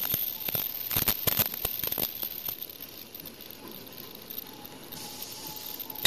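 Non-woven dust bag making machine running: a scatter of sharp clicks and knocks over the first two seconds, then a quieter steady hiss with a faint whine starting near the end.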